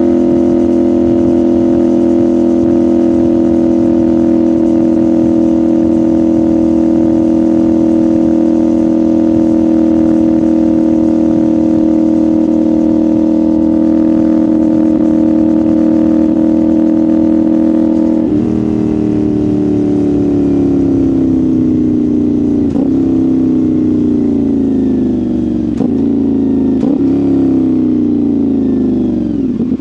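CFMoto 450SR parallel-twin engine and exhaust at a steady, constant rpm, then from about two-thirds of the way through the pitch falls steadily as the bike slows on engine braking, with several quick downshifts.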